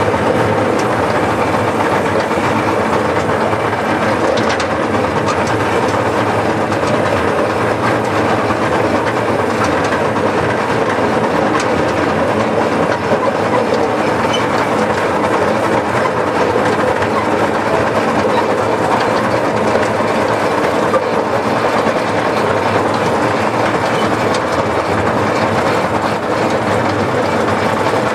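Miniature steam locomotive running along the track hauling its open passenger cars, the sound even and unbroken throughout.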